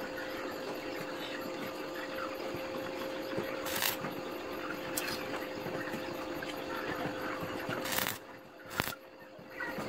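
Stick arc welding on steel rods: the electric arc crackles and sizzles steadily over a constant hum, with sharp louder bursts about four seconds in and again near the end.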